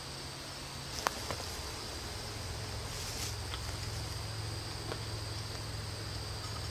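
Steady high insect trilling, like late-summer crickets, over a low steady hum, with a few faint clicks and knocks from someone climbing in the tree; the sharpest click comes about a second in.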